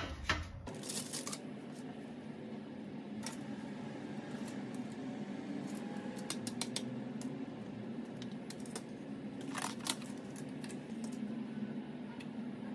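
Food-prep handling noises: a metal spoon clinking and scraping in a plastic tub and corn kernels dropping onto parchment paper on a metal baking tray, heard as scattered light clicks and taps. A steady low hum runs underneath.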